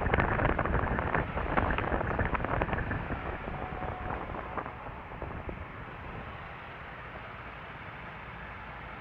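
Wind buffeting the microphone of a camera on a moving scooter, gusty and rumbling, dying away over the first five or six seconds as the scooter slows to a stop. A steady low rumble is left underneath.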